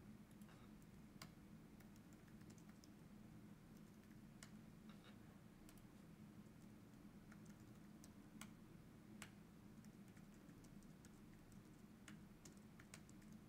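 Faint computer keyboard typing: scattered, irregular key clicks over a low, steady hum.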